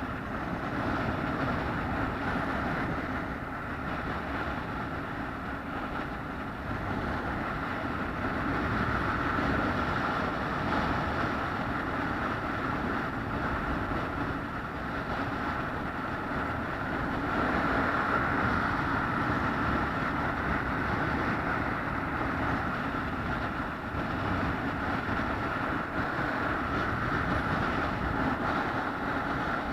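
A vehicle under way, its engine and travel noise running steadily with a constant drone, swelling and easing slightly.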